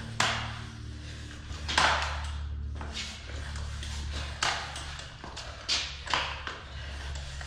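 A hand floor pump worked in strokes to inflate a bicycle inner tube toward 60 psi. There are about five strokes at uneven intervals, each starting sharply.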